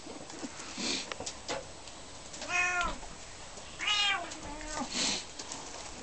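Bengal kitten meowing twice, two short calls about a second and a half apart, each rising and falling in pitch.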